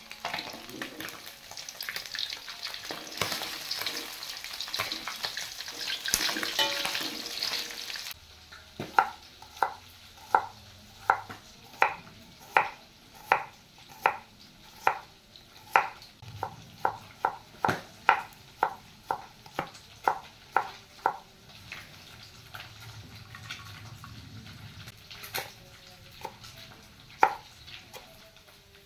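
Fresh anchovies sizzling in hot oil in a wok while a spatula stirs them. About eight seconds in this gives way to a kitchen knife chopping shallots on a wooden cutting board, sharp steady chops about two a second. The chops grow sparser near the end as green chilies are sliced.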